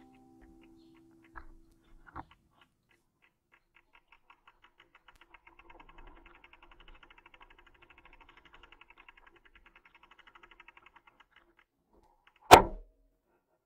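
Faint rapid ticking of a bicycle's freewheel as the bike coasts. It lasts several seconds, then a single sharp knock comes near the end.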